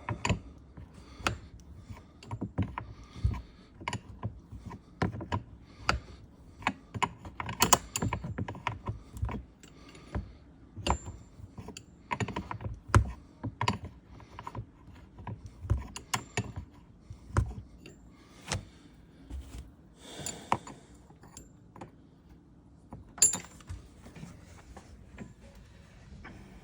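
Hand tools on metal: short runs of ratchet clicks mixed with irregular metallic knocks while the top mounts of rear coilover shocks are bolted in.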